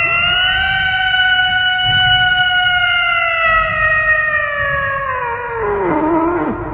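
A cat's single long meow, held at a steady pitch for about six seconds, then sliding down and stopping near the end.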